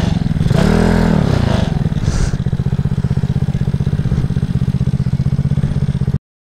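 Honda Zoomer scooter engine idling, with one quick throttle blip that rises and falls about a second in, then settling back to a steady, pulsing idle. The sound cuts off abruptly near the end.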